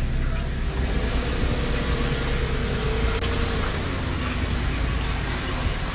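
A 2015 Chevy Silverado's V6 engine running steadily at low speed as the pickup rolls slowly past, with a faint whine wavering in the middle.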